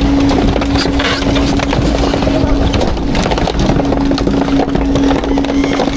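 Autocar/Heil Half/Pack garbage truck running a packing cycle: the truck's engine and hydraulics hum steadily while trash in the hopper crackles and crunches as it is compacted.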